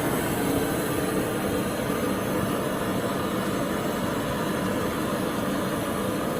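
Steady machinery noise with a low hum running without a break, typical of chiller plant equipment running.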